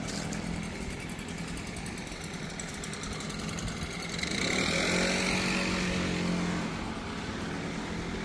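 Engine running steadily, swelling louder with a rising whine about four seconds in, then easing back.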